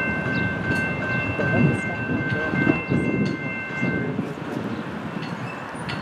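Horn of an approaching Norfolk Southern diesel locomotive, a chord of several notes held for about four seconds and then cut off, over the low rumble of the oncoming train.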